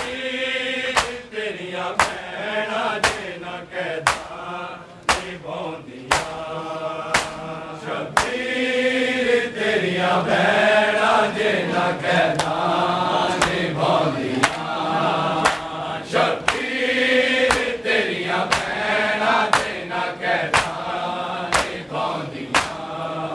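Male voices chanting a Punjabi nauha, a Shia mourning lament, in a rhythmic refrain. Under it come sharp slaps of hands on bare chests in unison (matam), about once a second.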